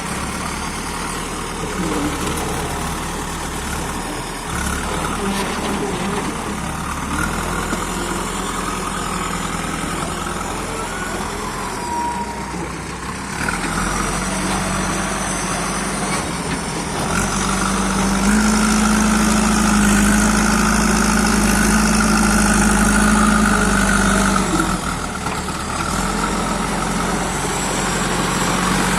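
Diesel engine of a JCB 3DX backhoe loader running while it digs and loads soil. It revs up and runs louder for several seconds past the middle, then eases back.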